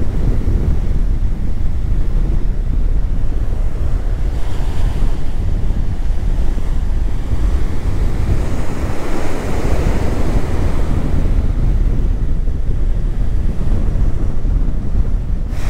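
Strong wind buffeting the microphone with a heavy low rumble, over ocean surf breaking and washing up the beach. The surf swells louder for a few seconds around the middle.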